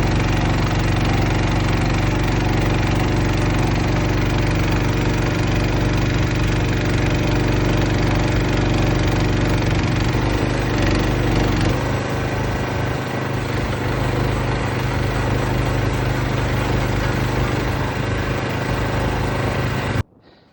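Mini excavator engine running steadily under hydraulic load from a post hole auger. Its note shifts slightly lower about ten to twelve seconds in, and the sound cuts off abruptly near the end.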